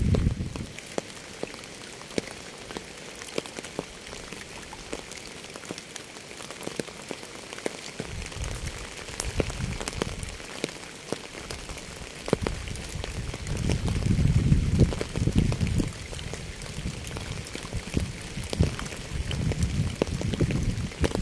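Rain falling steadily, with sharp ticks of single drops landing close by over a continuous patter. A low rumble swells and fades several times.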